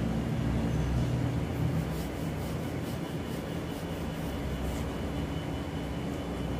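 A steady low machine-like hum, with a few faint soft ticks in the middle.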